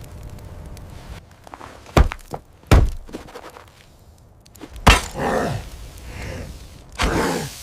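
Four heavy thuds a second or two apart, the last two each trailed by a short stretch of rough, rustling noise.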